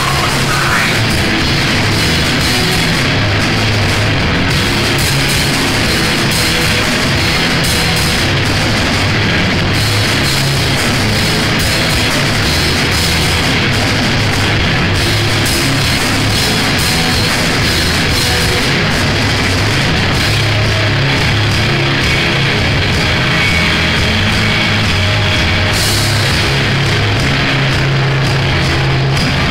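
A live grunge rock band playing loudly and without a break: electric guitars over bass and drums.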